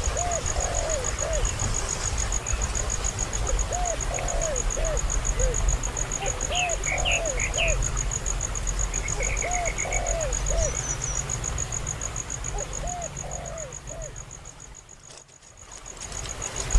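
An animal calling in short arched notes, in groups of two to four about every three seconds, over a steady high-pitched pulsing insect trill and a low rumble; the sound dips away briefly near the end.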